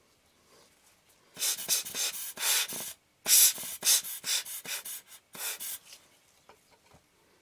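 Rubber hand air blower puffing air over a glass lens element to clear off dust. About a dozen quick hissing puffs come in two runs, with a short pause near the middle.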